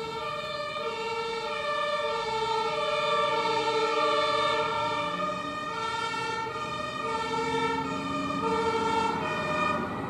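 German fire engines' two-tone sirens (Martinshorn) sounding on an emergency run, stepping back and forth between a low and a high note, with traffic noise beneath.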